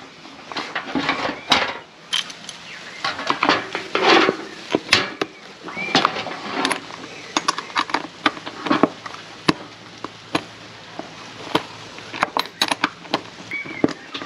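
A steel bolt and nut being fitted through a plastic MaxTrax recovery board and tightened with a ratchet spanner: scattered metal clinks and clicks, with scraping and handling of the board in between.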